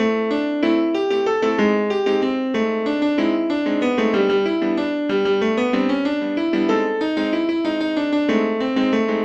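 Software piano playing a melody of short notes over chords in a steady run, with no drums or bass. It comes from an FL Studio track at 94 BPM.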